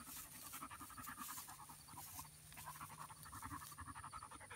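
A dog panting rapidly and faintly after a chase.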